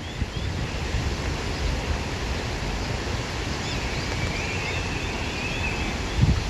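Wind blowing through grass, a steady rushing noise with a low rumble of wind buffeting the microphone.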